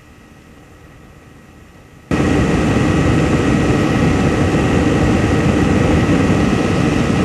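Ultralight aircraft's two-stroke engine and rushing air noise, cutting in suddenly and loud about two seconds in after a faint steady hiss, then running steadily.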